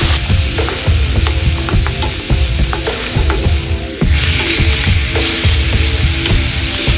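Onions and garlic sizzling in oil in a metal wok, with a wooden spatula scraping and clicking against the pan. About four seconds in, raw chicken pieces go in and the sizzle gets louder.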